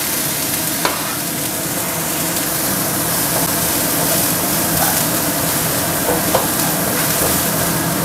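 Chopped garlic, shallots and celery stalk sizzling in oil in a nonstick wok while being stirred with a silicone spatula, with a steady frying hiss and a few light taps.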